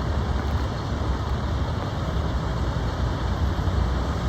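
Steady road-traffic rumble from passing vehicles, a low engine and tyre drone with no horn blast.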